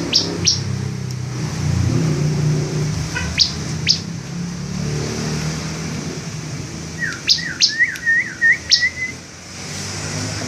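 Bar-winged prinia (ciblek) calling: sharp, high, single chips scattered through, then about seven seconds in a quick run of short rising notes. A low steady hum runs underneath.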